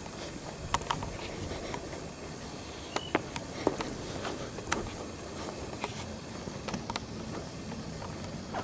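Steady outdoor background hiss with scattered sharp clicks and taps, from a person walking over stone with a handheld camera.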